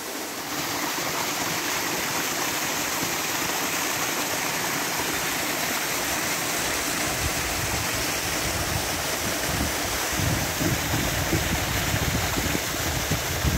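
Waterfall rushing steadily. From about halfway, wind buffets the microphone in uneven low gusts.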